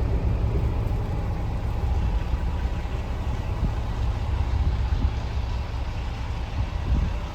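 Scania R410 truck's diesel engine idling steadily.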